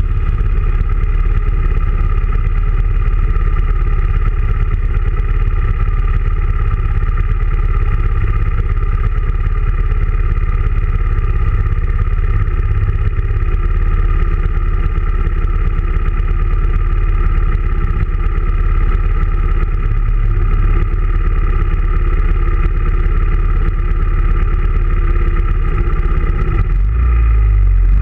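Motorcycle engines running: the Honda Grom's small single-cylinder engine close to the microphone, with sport bikes alongside, steady while rolling and then sitting at idle. The engine note changes near the end as the group starts to pull away.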